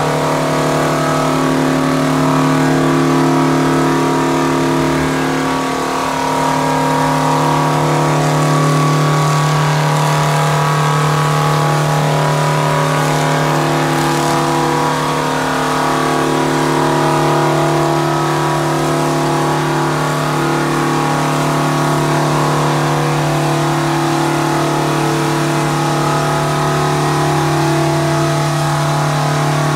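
Antique farm tractor engine running steadily at high power under load while pulling a weight-transfer sled, holding one steady pitch with brief slight dips in level about 6 and 15 seconds in.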